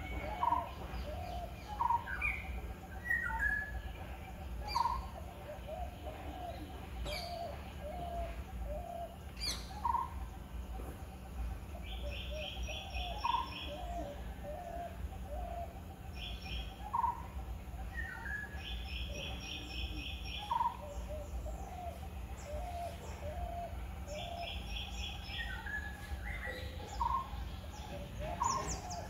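Several birds calling: a short single note repeated every few seconds, and a fast trill of rapid pulses that comes three times. A low steady rumble runs underneath.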